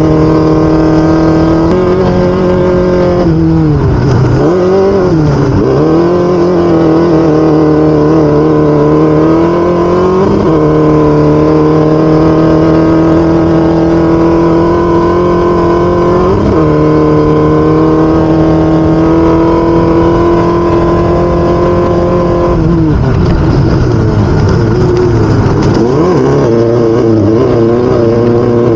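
Off-road race vehicle's engine running hard at a mostly steady high pitch. Twice, once a few seconds in and again near the end, the pitch drops and wavers up and down as the throttle is lifted and reapplied.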